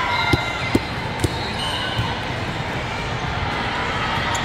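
Volleyballs being hit and bouncing on hard courts, a scattered series of sharp smacks, several close together in the first second or so and sparser after, over the steady din of a large, busy tournament hall.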